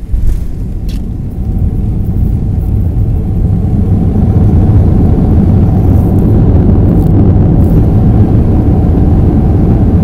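Airliner's engines and runway rumble heard from inside the cabin during the takeoff roll: a loud, deep rumble that builds over the first few seconds and then holds steady.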